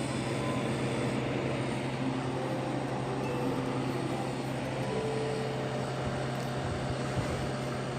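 Old steel-bodied freezer running on its newly fitted compressor: a steady low hum under a constant even rushing noise.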